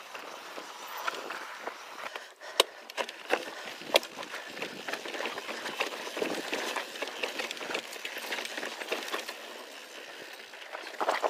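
Mountain bike rolling along a dirt and rock singletrack: steady tyre and trail noise with scattered sharp clicks and knocks, the two strongest a few seconds in.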